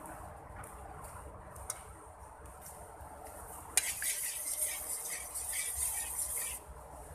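Hot cooking oil sizzling in a wok as a metal spatula clinks against it and stirs, starting with a sharp clink a little past halfway and stopping abruptly near the end.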